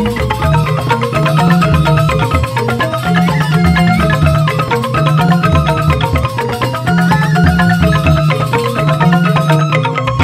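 Balinese joged bumbung gamelan playing: bamboo xylophones (grantang) struck with mallets in fast, dense interlocking patterns over low bass notes, with bamboo flutes (suling) playing along.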